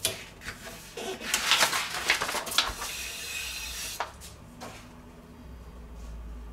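A round printed card cover being lifted and slid off a pizza oven's stone: a rustling scrape with a few light knocks, then quieter handling of the card.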